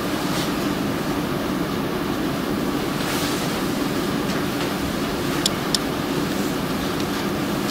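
Steady low hum of room noise, with two short, sharp clicks about five and a half seconds in.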